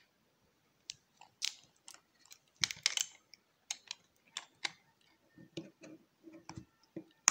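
Hard plastic clicks and clacks of an action camera's clear waterproof housing and its plastic mount being handled and fitted together, with a cluster of louder clacks about three seconds in and softer knocks near the end.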